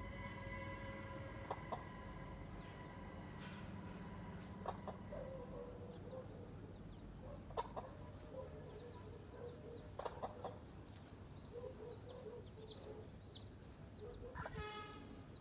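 A hen clucking low and repeatedly to her chicks, with a few brief high chick peeps and one louder call near the end.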